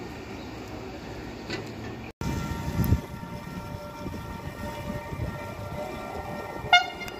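Distant train rumble, a brief dropout, then a CP class 5600 electric locomotive (CP 5607) hauling an Intercidades train approaching with a steady electric whine. Near the end comes a short horn toot, the loudest sound, with a fainter second toot just after.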